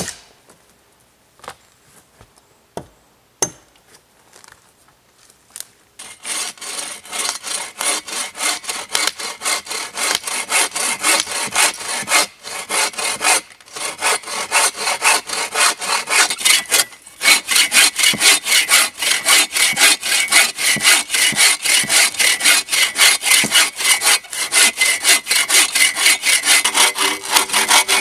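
A few separate chopping blows on wood, then about six seconds in a bow saw starts cutting through a log with rapid, even back-and-forth strokes that run on steadily.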